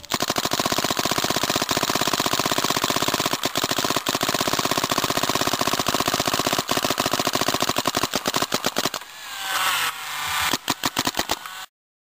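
2003 Smart Parts Shocker SFT electropneumatic paintball marker, fitted with a Virtue board, firing a long rapid string of shots. The firing breaks off briefly about nine seconds in, then a last burst, then it stops suddenly near the end.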